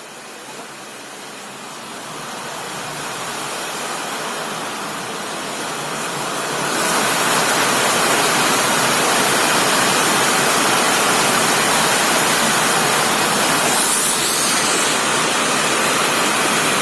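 Heavy downpour of rain, a steady rushing hiss that grows louder over the first few seconds and jumps up about seven seconds in.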